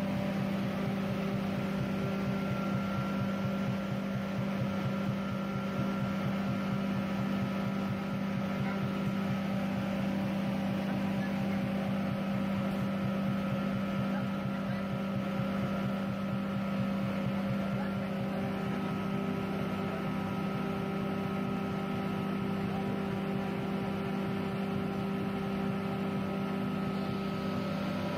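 Electric-motor-driven rice husk grinder running steadily under load, milling husks into fine powder: a constant strong hum with a few steady whining tones over a fast low pulsing.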